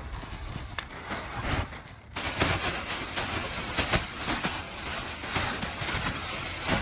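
A steady hiss of rushing air that starts abruptly about two seconds in, over a low rumble.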